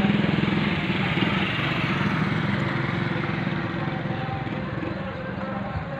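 A small engine running steadily with a fast, even pulse, slowly getting quieter.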